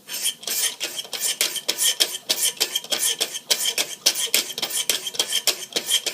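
The 600-grit stones of a Wicked Edge precision knife sharpener stroked along the edge of a double reed knife: short, even scraping strokes in a fast steady rhythm, several a second.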